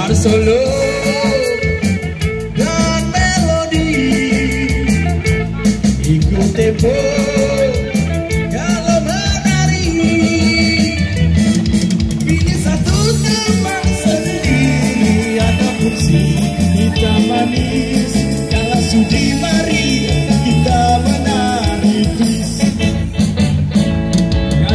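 Amplified live band playing a rock/pop song: electric guitar, bass guitar and drums keeping a steady beat, with a wavering lead melody over them.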